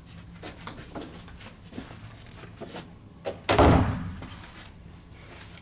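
Hotel room door swinging shut with one heavy thud about three and a half seconds in, latching the room locked. A few faint clicks and taps come before it.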